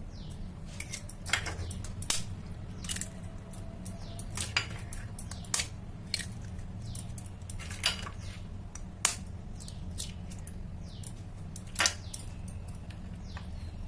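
Eggs cracked open with a kitchen knife over a glass bowl: sharp taps of the blade on the shell, about eight clicks every second or two, over a steady low hum.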